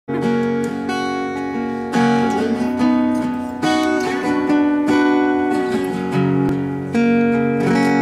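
Acoustic guitar playing an instrumental intro: chords struck and left ringing, a new chord every second or two.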